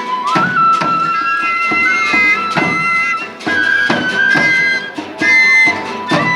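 Instrumental music: a wind instrument holds long notes that step up and down, over a steady drum beat.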